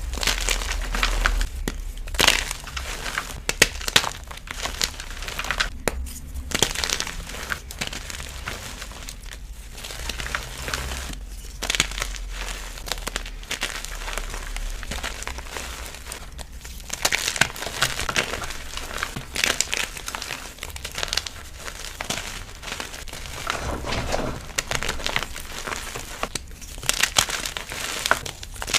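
Gym chalk being crushed by hand in a bucket: a dense crackling crunch and crumble of the chalk, coming in waves of squeezes with short lulls between them.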